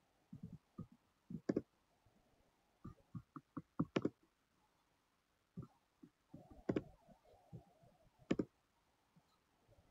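Computer mouse clicking, picked up faintly: four louder sharp clicks spread a second or two apart, with fainter clicks and taps between.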